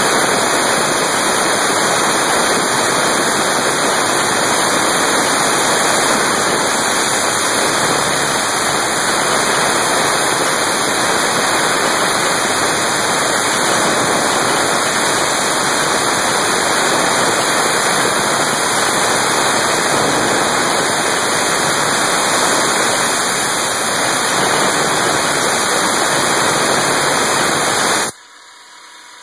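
Steady loud hiss of air from a handheld nozzle aimed at the end mill of a CNC-converted Sieg X3 milling machine as it cuts metal. The hiss cuts off abruptly near the end, leaving the quieter running of the mill.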